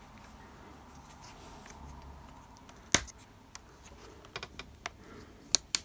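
A pry tool working into the seam of a laptop's plastic panel: one sharp click about three seconds in, then a run of small clicks and two sharp snaps near the end as the panel's clips begin to give.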